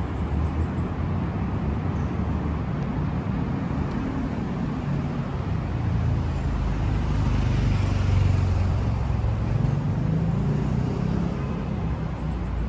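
Steady road traffic noise, a low rumble that swells for a few seconds around the middle.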